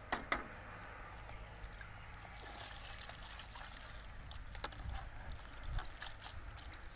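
A cleaver knocks twice on a wooden chopping board, then hands slosh and rub cut greens in a plastic bowl of water, washing them, with small splashes and clicks.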